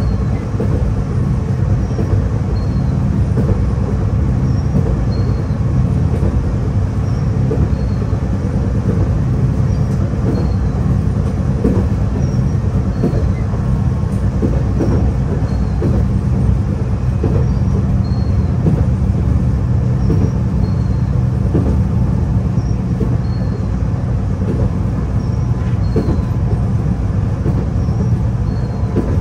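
Interior running noise of a Fukui Railway F1000 low-floor tram travelling at speed: a steady low rumble of wheels on rail, with occasional faint knocks.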